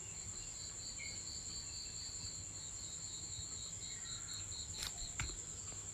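Faint insect trilling: a steady high-pitched whine throughout, with a second, lower pulsing trill that fades out about five seconds in. Two light knocks come near the end.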